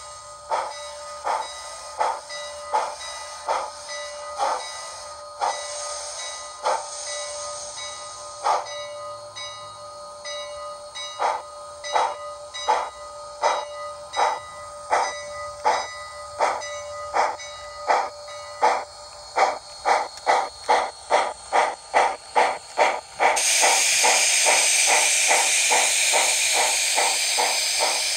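TCS WOW Sound decoder in a Bachmann 2-8-4 Berkshire model locomotive playing steam exhaust chuffs that quicken steadily as the engine gets under way with its train. About 23 seconds in, a loud steady steam hiss takes over from the chuffs.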